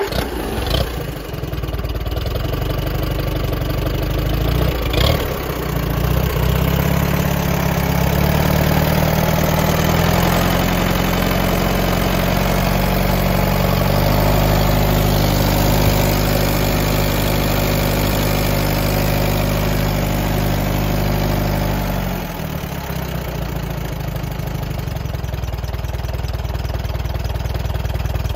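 1948 Allis-Chalmers C tractor's four-cylinder overhead-valve engine starting without choke and running steadily. About 22 seconds in it drops to a lower, quieter running as the throttle is pulled back to a low idle.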